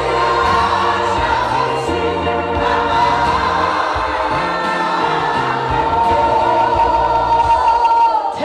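Gospel song led by a woman singing into a microphone, with a choir of voices singing along on long held notes over a stepping bass line.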